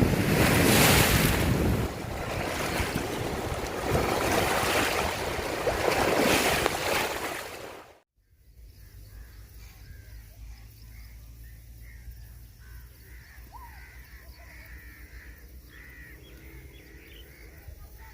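Loud rushing noise of wind and open water, swelling and falling for about eight seconds. It stops abruptly, and a quieter outdoor background follows with a low hum and many short bird calls.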